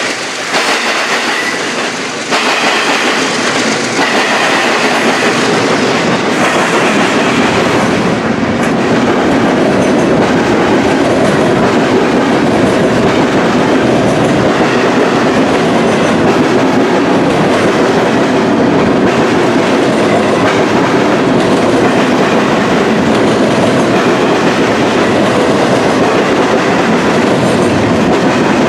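A long intermodal freight train rolling past at close range, its car wheels clattering over the rail joints and the diamond crossing in a steady, loud rumble that builds over the first few seconds and then holds.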